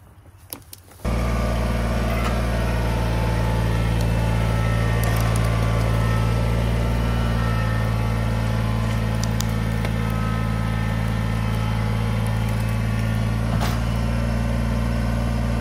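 Kubota BX23S compact tractor's three-cylinder diesel engine running steadily. It comes in abruptly about a second in.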